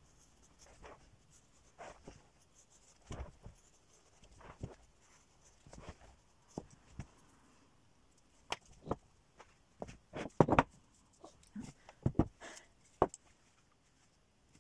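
Scattered taps, knocks and rustles of hands working a felt hat on wooden hat blocks, with a cluster of louder knocks in the second half as the felt comes off the block and the wooden block is handled on the worktable.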